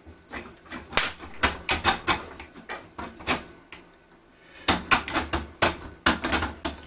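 Clicks and clacks of 3D-printed plastic brackets and steel rods being handled and slid together, with a stepper motor set in among them. The sharp knocks come in bunches, about a second in and again in the last two seconds.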